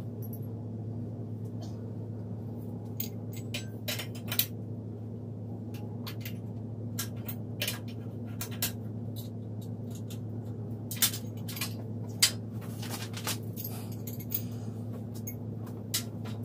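Hard clicks and clinks of flat-pack furniture parts being handled and fitted together, scattered irregularly, the sharpest about four seconds in and again around eleven and twelve seconds in. A steady low hum runs underneath.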